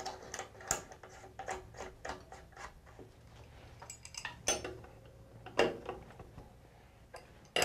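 Irregular small metal clicks and clinks as a faucet valve's retaining nut is put back on and threaded down by hand, with a few louder clinks now and then.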